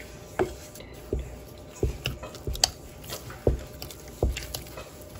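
Wooden spoon working a raw egg into stiff churro dough in a stainless steel saucepan: wet squelches and dull knocks of the spoon, about six strokes.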